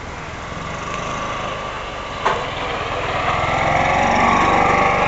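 A small engine running, growing louder to a peak about four seconds in and easing off near the end. A single sharp click comes a little after two seconds.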